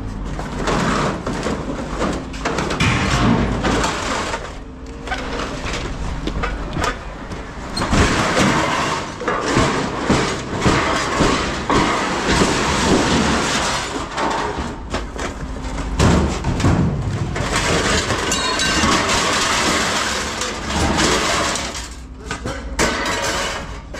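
Loose pieces of scrap metal clattering and rattling as they are handled and tipped into a bin, with cardboard boxes being handled, in a continuous run of knocks and scraping.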